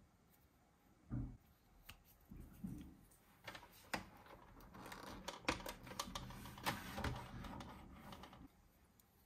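Light plastic clicks, taps and rubbing as a plastic toy figure is handled and seated on a toy treehouse playset's swing. There is a soft knock just after a second in, and the clicking is busiest from about three seconds in until shortly before the end.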